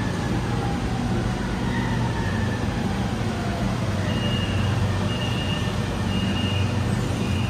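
Metro platform with a train standing at it: a steady low hum under a general rumble. About four seconds in, a series of short high beeps begins, repeating roughly once a second, like a train or platform-door warning signal.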